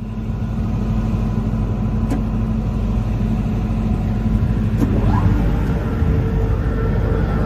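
Weima WL 4 single-shaft wood shredder running, its 18.5 kW motor and knife rotor giving a steady low rumble and hum. There are a few sharp cracks as wood is broken up. The hum's pitch shifts upward about five seconds in.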